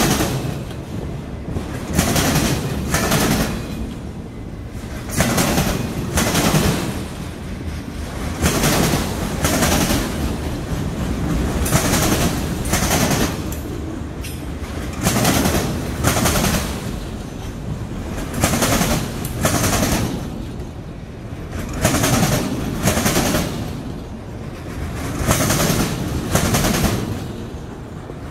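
Freight train of autorack cars rolling past, its steel wheels clacking over the rail joints in clusters of quick clicks about every three seconds over a steady rumble.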